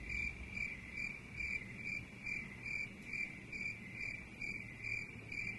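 Cricket chirping, used as a sound effect: a steady run of short, high, evenly spaced chirps that cuts off abruptly. It is the 'crickets' gag for a blank, silent moment.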